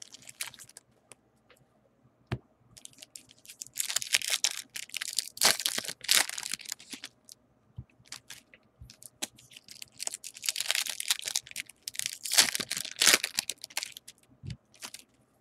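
Foil baseball card pack wrappers being torn open and crinkled by hand, in two longer bouts about four and ten seconds in, with lighter rustles and clicks between.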